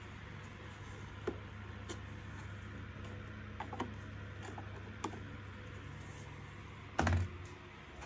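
Light clicks and ticks of a screwdriver working on the plastic housing and circuit-board mount of a vacuum cleaner, a few scattered strokes over a low steady hum, with one louder knock about seven seconds in.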